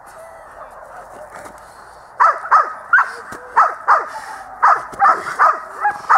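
A Rottweiler barking hard and repeatedly, about ten barks at a bit over two a second, starting about two seconds in. This is the agitation barking of a dog tied on a line while a helper with a padded bite sleeve works it up in protection training.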